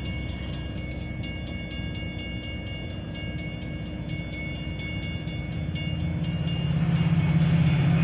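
A grade-crossing bell ringing rapidly and steadily over the low rumble of an approaching Metra commuter train. The train's rumble grows louder over the last two seconds as it nears.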